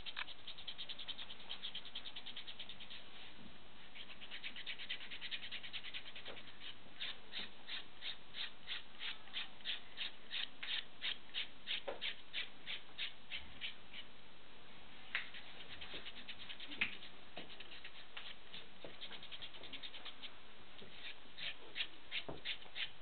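Foot rasp scraping hard skin off a heel in short back-and-forth strokes, about three a second. The strokes pause for several seconds midway, with two sharp ticks, then start again near the end.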